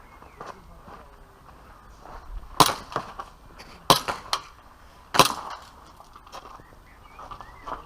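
Airsoft pistol fired three times, about 1.3 seconds apart, each shot a sharp crack, with lighter clicks in between.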